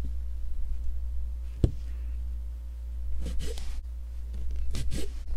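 Needle and thread being worked through the drawn threads of hemstitched fabric: a single sharp click about one and a half seconds in, then two brief rasping rustles, over a steady low hum.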